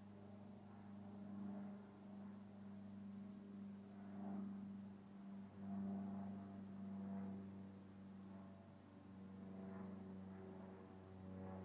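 Quiet, low, steady drone with several overtones that swell and shift, breaking off briefly about five seconds in before carrying on.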